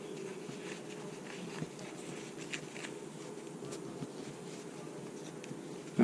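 Faint handling sounds of cord being woven and pulled through a small plastic sheath: soft rustles and a few light ticks, over a steady low room hum.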